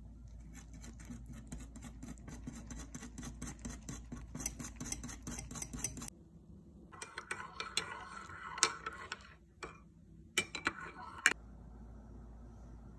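Wire whisk stirring soup in a metal saucepan, its wires ticking rapidly and clinking against the sides of the pot. The whisking breaks off about six seconds in, then comes back in shorter spells.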